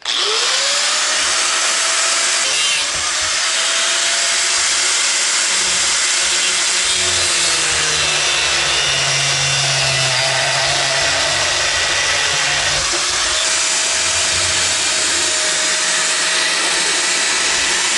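Electric angle grinder spinning up, then cutting into a large steel combination wrench with a loud, steady grinding. The motor's whine sags in pitch as it bears down on the steel around the middle, then picks up again.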